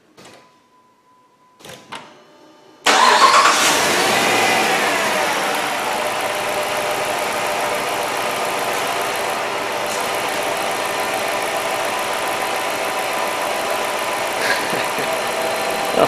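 Jeep Commander's 5.7 Hemi V8 starting about three seconds in, flaring up briefly and then settling to a steady idle. It runs smoothly with no misfire, its ECU adaptive memory freshly reset.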